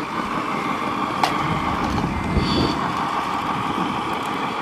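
Radio-controlled scale Scania truck hauling a loaded low-loader trailer, its drive running steadily. There is a sharp click about a second in and a short high chirp about two and a half seconds in.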